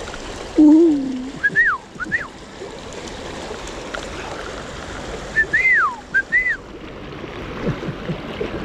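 Shallow river riffle running with a steady rush of water. Over it come two groups of short whistled notes that rise and fall, one about a second and a half in and one about five and a half seconds in, and a brief low voice-like sound just under a second in.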